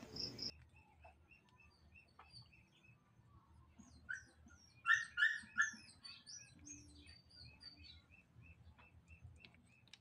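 Small birds chirping: faint repeated chirps throughout, with a louder run of quick chirps about four to six seconds in.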